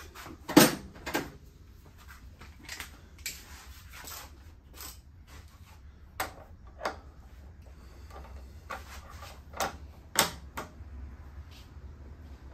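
Ratchet and 1-1/2-inch socket clicking and knocking on the steering stem bolt of a Harley-Davidson Dyna's top clamp as it is fitted and broken loose. Sharp clicks come at uneven intervals, the loudest about half a second in and about ten seconds in.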